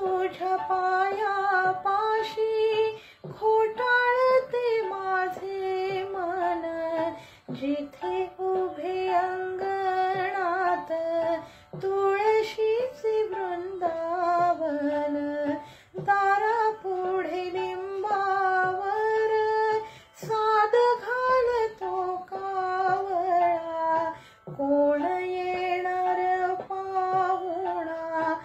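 A woman singing a Marathi song solo, in melodic phrases of about four seconds with short breaks for breath between lines.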